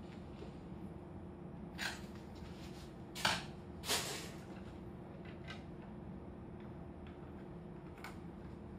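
A desktop computer case being handled and worked on with a screwdriver: a few scattered clicks and knocks of its parts, the loudest two about three and four seconds in, over a steady low hum.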